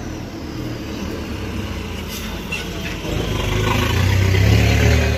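Street traffic: a motor vehicle's engine and tyres rumbling past, growing louder from about three seconds in.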